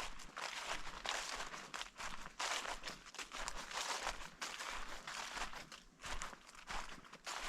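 Footsteps of a person walking on the forest floor in late autumn, a steady series of rustling steps at an even walking pace.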